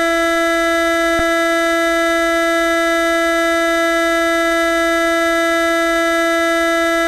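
A single long, loud 'moo' sound effect held at one unchanging pitch, with a faint click about a second in.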